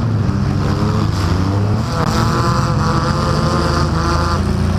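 Demolition derby car's engine running loud and hard, picked up right over the engine by a hood-mounted camera, with a higher engine note coming in about two seconds in.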